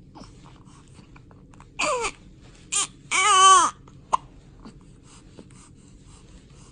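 A baby crying in short high-pitched wails: one cry about two seconds in, a brief squeal, then a longer cry that rises and falls in pitch. About a second later comes one short sharp catch, a hiccup.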